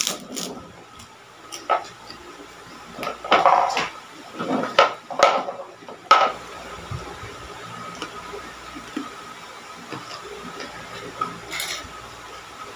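Close-up eating sounds: a bite of fried kerupuk cracker crunching at the start, then a few seconds of crunchy chewing mixed with knocks of fingers and food against the plate and stone mortar, then quieter chewing with a few small clicks.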